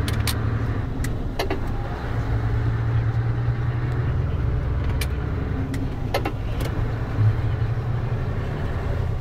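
Mercedes-Benz Actros truck heard from inside the cab while driving: a steady low engine drone with road noise. A few short sharp clicks or rattles come through, about a second in, near the middle and again a little after.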